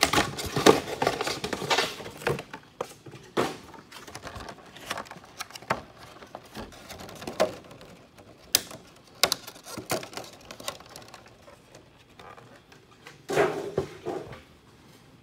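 A cardboard trading-card collection box being opened and its contents handled: scattered clicks, taps and rustles, densest in the first two seconds, with a louder rustling cluster near the end.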